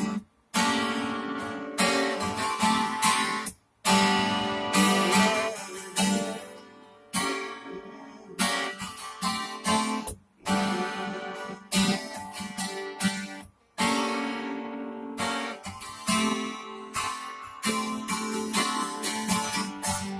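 Acoustic guitar strummed, chord after chord, with no singing. The sound cuts out completely for a split second four times.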